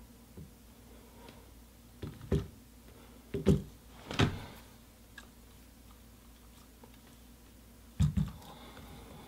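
Knocks and clicks of a Joby GorillaPod's segmented flexible legs being moved and set down on a tabletop: a few sharp knocks between about two and four and a half seconds in, and a double knock near the end.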